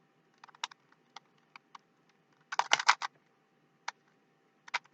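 Rubik's Cube layers being twisted by hand: scattered sharp plastic clicks, with a quick flurry about two and a half seconds in and another near the end.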